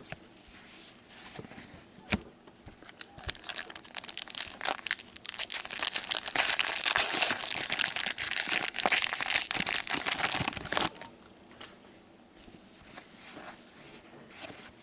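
Wrapper of an O-Pee-Chee hockey card pack being torn open and crinkled by gloved hands. The crinkling swells about four seconds in, stays loud for several seconds and stops sharply near eleven seconds, with quieter rustling of cards around it.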